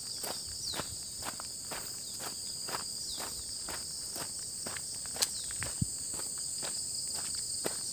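Footsteps on a dirt path, about two steps a second, over a steady chorus of insects singing high and continuous. A sharper snap and a low thud stand out about five seconds in.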